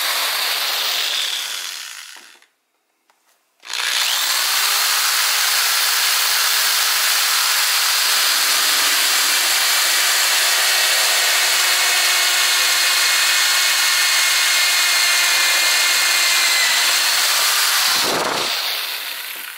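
Corded drill with a hole saw cutting a round hole through a clear plastic tub. A brief run winds down at the start, then after a short pause the drill runs steadily for about fourteen seconds while cutting and winds down near the end.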